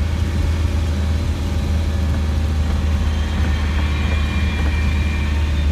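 Steady low drone of a Land Rover 90's diesel engine heard from inside the cab while driving, with tyre noise from a gravel track.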